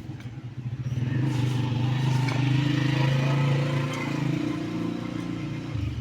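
An engine running steadily, getting louder about a second in and dropping in pitch near the end.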